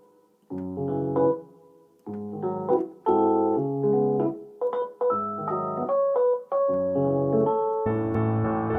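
Background music: keyboard phrases with a piano-like sound, played in short bursts separated by brief breaks, turning into a fuller, continuous passage near the end.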